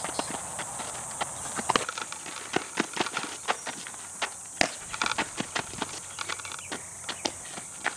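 Quick footsteps scuffing on a dirt softball infield, with sharp pops of a softball meeting leather gloves as balls are fielded and thrown; the loudest pop comes about four and a half seconds in.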